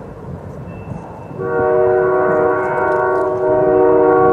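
Canadian Pacific freight locomotive rumbling closer, then sounding a long multi-note air-horn chord that starts about a second and a half in and jumps well above the rumble.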